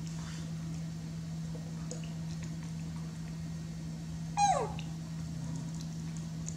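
A young macaque gives one short, high squeal that falls sharply in pitch about four seconds in, over a steady low hum.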